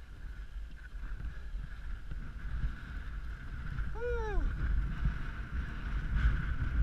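Wind buffeting a helmet-mounted camera's microphone as skis slide and scrape over wind-packed snow, the rumble growing louder toward the end. About four seconds in there is one short call that rises and falls in pitch.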